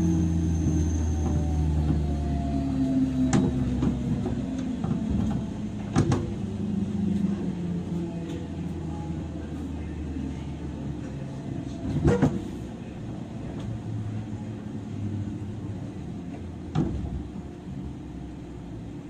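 Onboard running sound of a 103 series electric train in motor car MoHa 103-773: traction motor and gear hum falling slowly in pitch and level as the train slows, with a few sharp clacks of wheels over rail joints.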